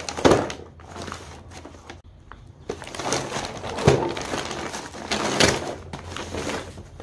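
Brown paper mailer bag being crumpled and torn open by hand: a run of crinkling, crackling rustles, loudest just after the start, about four seconds in and about five and a half seconds in.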